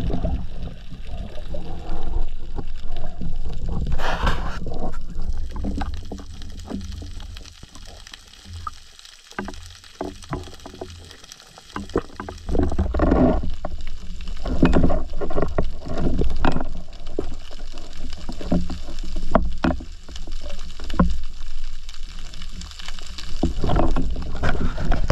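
Water rushing and gurgling over a diver's underwater camera as he moves up toward the surface. It is quieter for a few seconds near the middle, then louder and choppier toward the end.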